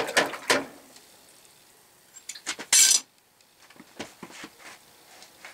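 Steel tongs and a small quenched mild-steel sample knocking and clinking against a galvanized bucket, then being handled. The clinks come in the first half-second and in a cluster around the middle, ending in a short, loud scraping rasp, with faint ticks of handling after.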